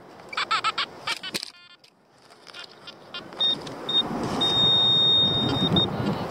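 Metal detecting pinpointer giving two short high beeps, then a continuous tone of about a second and a half, then one more beep as it closes on a coin buried in the sand. Scraping and rustling of sand being dug by hand runs under the beeps. Early on there are a few short warbling detector tones.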